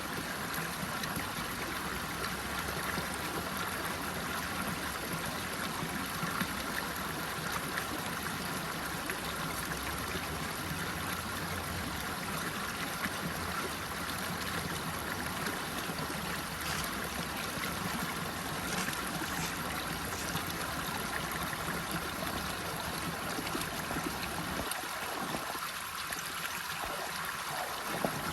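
Running water: a steady, even rush of flowing water, its low rumble thinning for a few seconds near the end.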